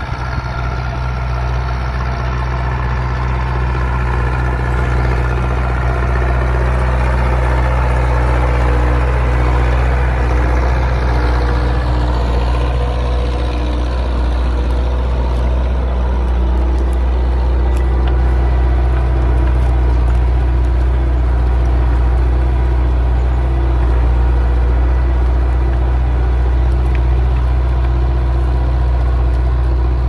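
Zetor 6211 tractor's diesel engine running steadily under load while pulling a plough.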